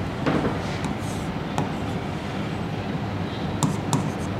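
Marker pen writing on a whiteboard: a stroke about a quarter second in, then a run of short, sharp ticks near the end as letters are written, over steady room noise.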